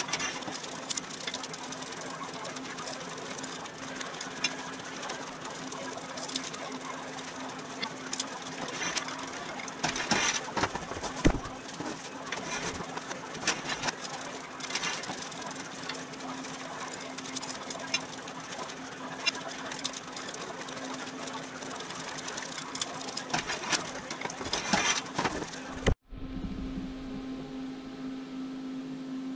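Hand-pumped hydraulic pipe bender at work: irregular clicks and knocks from the bottle jack's pump handle and the metal tube under bending, over a steady low hum. The sound cuts off abruptly near the end, leaving only the hum.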